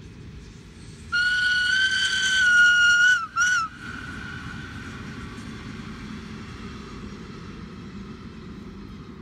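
Horn of an SBB electric passenger train: one long high blast of about two seconds and then a short second toot, each dipping in pitch as it stops. The train's steady rolling noise on the rails follows as it passes.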